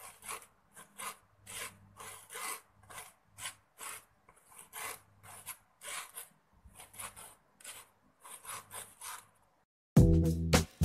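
Glutinous rice flour being rubbed through a sieve's wire mesh with a plastic scraper: rhythmic rasping strokes, about two a second. The strokes stop near the end and background music comes in.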